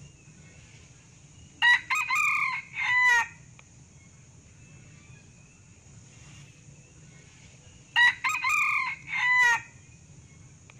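Male red junglefowl (Sumatran) crowing twice, about six seconds apart. Each crow is short and broken into parts, a brief first note, a longer middle and a clipped final note.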